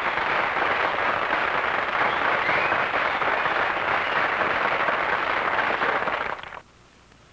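Audience applauding, a dense steady clapping that cuts off suddenly about six and a half seconds in.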